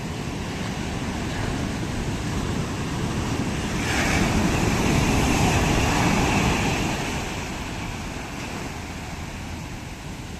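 Sea waves on a beach: a steady wash of surf, with one wave breaking and washing in about four seconds in, growing louder for a few seconds before easing off.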